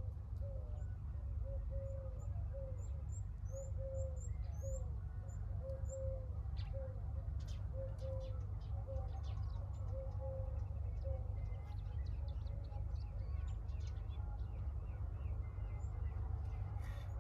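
Birds calling: a short low note repeated about once a second, with faint high chirps, over a steady low rumble.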